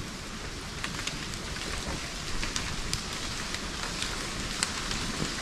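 Steady rain falling, with many individual drops ticking sharply on a nearby surface.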